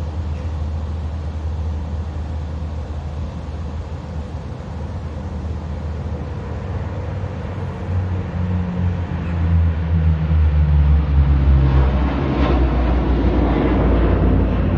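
Hercules military transport's four turboprop engines droning low, growing louder about halfway through as the aircraft comes over. Its hum drops in pitch as it passes, under a rushing roar near the end.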